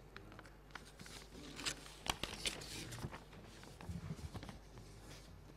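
Sheets of paper rustling and crackling close to a microphone as they are handled, in a run of crackles and small clicks that is loudest a couple of seconds in.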